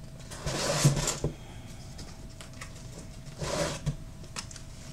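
Comic books being handled and swapped out: two bursts of rustling and sliding, about a second in and again past the middle, with a few light taps.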